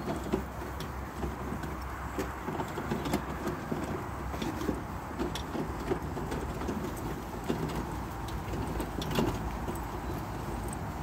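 Pony cart rolling over a loose arena surface behind a pair of miniature ponies: a steady low rumble of the wheels with many light irregular clicks and jingles from the harness and hooves.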